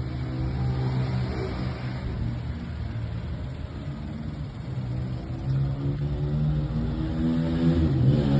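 An engine running steadily with a low hum whose pitch wavers a little and shifts near the end.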